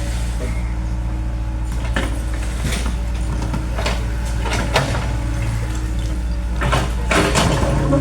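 Excavator's diesel engine running steadily, with irregular knocks and clatter from about two seconds in, growing busier near the end.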